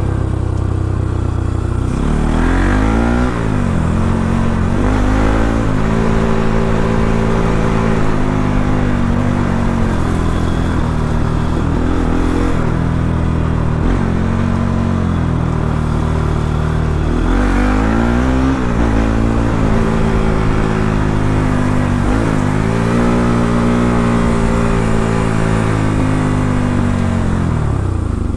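Bajaj Pulsar NS200's single-cylinder engine running through its stock exhaust while ridden, revving up and dropping back several times as it pulls through the gears, with steady cruising between.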